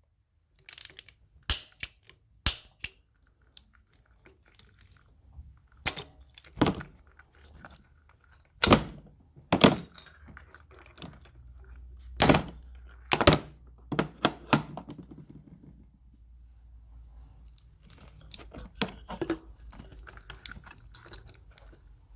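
About a dozen sharp knocks and clicks, irregularly spaced, from hands and tools working on the engine parts during a spark plug change. A low steady hum sits underneath from about eight seconds in.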